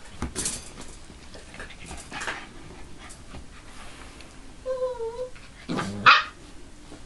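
Siberian husky puppies playing and scuffling together, with a short whine about five seconds in and a brief sharp yip just after it, the loudest sound.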